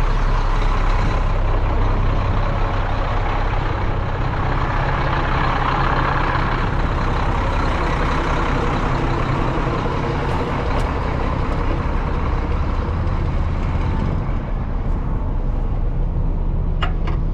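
Diesel dump truck engine running steadily while driving, with road noise; the engine note shifts a little partway through.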